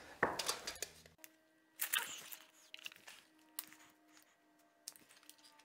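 Handling sounds of measuring and marking on timber boards with a tape measure: a few short knocks and scuffs, the loudest just at the start.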